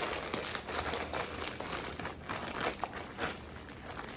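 Crinkling and rustling as a T-shirt and its plastic packaging are handled and turned over, a dense run of small crackles.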